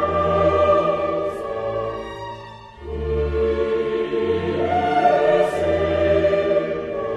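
Background music: long held, choir-like chords over a low pulsing bass, dipping briefly about three seconds in before swelling again.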